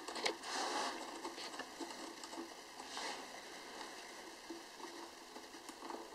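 Faint handling sounds of a plastic propeller being fitted to a quadcopter motor and its small nut worked onto the shaft: light clicks and scrapes, with a short rustle about half a second in and another around three seconds in.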